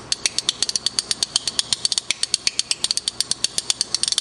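A pair of spoons played as a percussion instrument, clacked back to back against the knee and hand in a fast, steady rhythm of sharp clicks.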